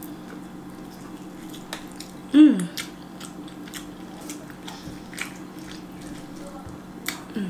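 A person biting into and chewing barbecued rib tips: scattered soft mouth clicks and smacks over a steady low hum, with a short falling 'mm' of voice about two and a half seconds in.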